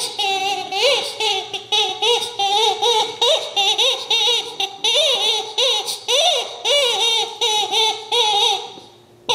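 Blue clucking chicken dog toy squawking over and over as a dog bites and presses it: a quick run of short squeals that glide up and down, several a second.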